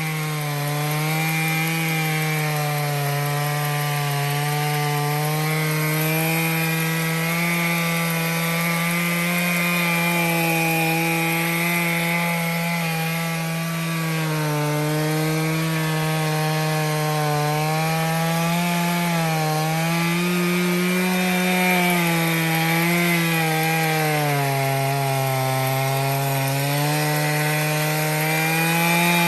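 Stihl MS461 two-stroke chainsaw running at high revs on an Alaskan mill, ripping a cedar log lengthwise. The engine pitch wavers as the load changes, sagging lowest about 25 seconds in before picking back up.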